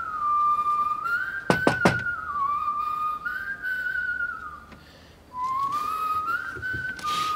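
A person whistling a slow melody, one clear note at a time, stepping up and down in pitch and breaking off briefly about five seconds in before carrying on. Three quick sharp knocks sound over it about a second and a half in.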